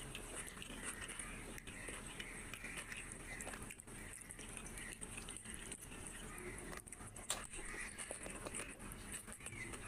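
Close-miked eating sounds of a person eating rice and mutton curry by hand: wet chewing and lip smacking, with squelches of fingers working the curried rice and one sharp click about seven seconds in.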